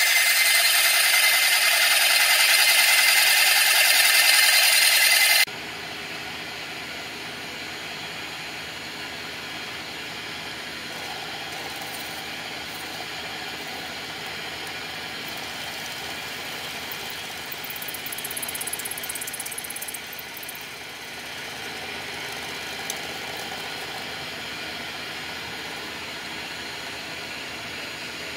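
Small milling machine running steadily, at first with a loud high whine. Then, after a sudden drop, a quieter steady motor hum as an end mill cuts slots into a vacuum-formed plastic shell, with a louder stretch of cutting noise about 18 to 20 seconds in.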